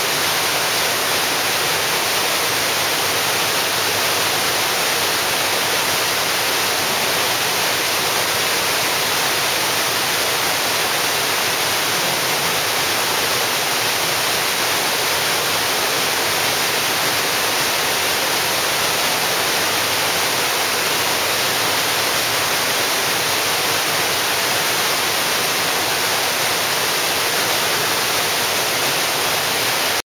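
Waterfall pouring into a plunge pool in a rock canyon: a steady, hissy rush of falling water that does not change.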